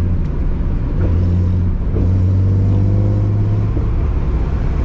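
Datsun 240Z's inline-six engine, on Weber carburettors, running under way at a steady note. The note dips briefly twice in the first two seconds, then holds.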